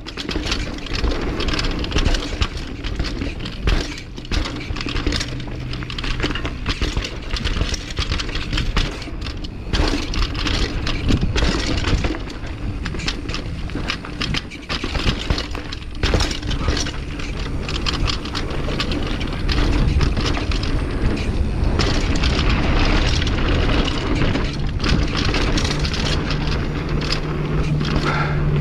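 Downhill mountain bike ridden fast over a rough dirt singletrack, heard from a bike-mounted camera: continuous rattling and clattering of the bike with tyre rumble and frequent sharp knocks over bumps. A low steady hum comes in near the end.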